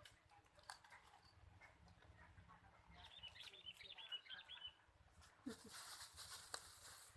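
Near silence, with a short run of faint high chirps about three seconds in, scattered small clicks, and a brief faint hiss near the end.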